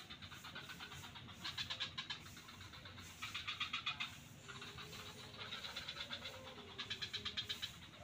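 A chorus of frogs calling with fast pulsed calls, going on throughout, with three louder bouts of under a second each, about one and a half, three and seven seconds in.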